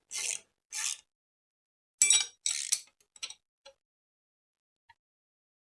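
Torque wrench ratcheting on an engine mount bolt, two back-and-forth strokes about half a second apart. Then, around two seconds in, a cluster of metal clinks of tool on bolt, followed by a few light ticks.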